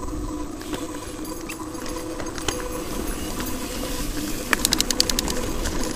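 Mountain bike rolling along a grassy dirt trail, a steady run of tyre and ride noise. About four and a half seconds in comes a short run of rapid, evenly spaced ticks, about ten a second, lasting under a second.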